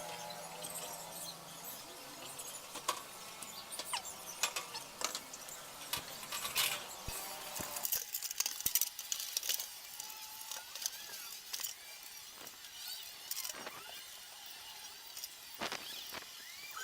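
Irregular clicks and light metallic clinks of tools and small parts being handled while a washing machine is worked on.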